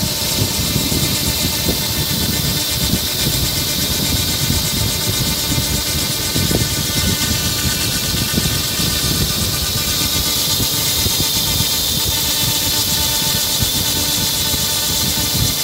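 Handheld laser rust-cleaning unit running as its beam strips rust from sheet metal: a steady, loud hiss over an even machine hum.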